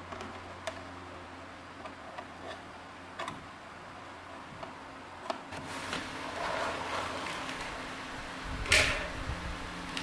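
Scattered light clicks and knocks, with a rustling stretch in the second half and one louder, sharp clack near the end.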